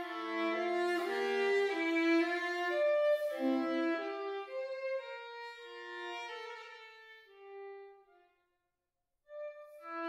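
Unaccompanied violin playing a phrase that moves downward and fades away. After a brief silence about eight seconds in, a loud new phrase begins near the end.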